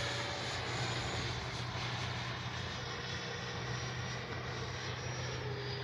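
Electric ducted-fan whine of an E-flite F-16's 70mm EDF jet flying at a distance, running steadily, its pitch dropping slightly near the end.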